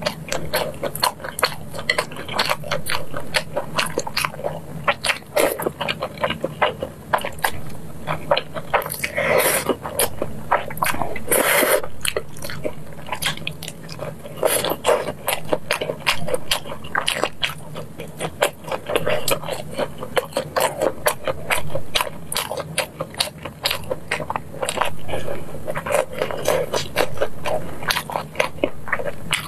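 Close-miked eating sounds: wet chewing and biting of sauce-coated fried chicken and spicy instant noodles, a steady run of quick mouth clicks and crunches with a few longer noisy mouthfuls.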